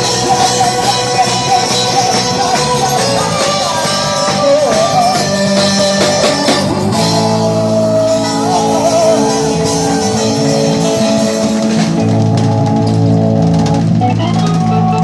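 Busker band playing live rock music with guitar and drum kit. A wavering melody line in the first half gives way to held chords over a heavy bass from about halfway.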